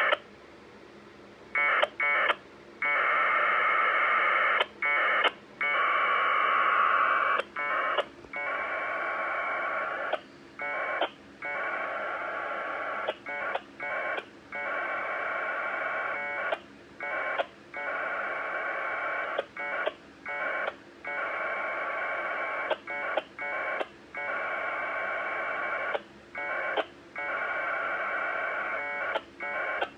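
1200-baud Bell 202 AX.25 packet data tones heard over a UHF radio, a steady buzzing screech broken every second or two by short gaps as the link turns around between the two stations. It is the sound of a Winlink email being downloaded over packet radio.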